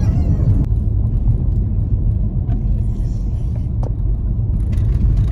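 Steady low road and engine rumble heard inside the cab of a pickup truck driving on a paved road.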